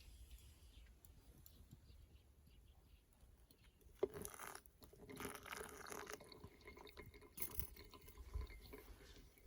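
Water being poured in a few short spells, with a sharp clink about four seconds in.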